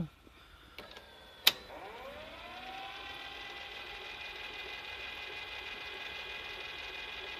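A sharp click about a second and a half in, then the Victor HR-S10 video cassette recorder's motors spin up with a rising whine and run steadily as the tape transport plays. The mechanism keeps running without cutting out, the sign that the hardened grease is no longer stalling it.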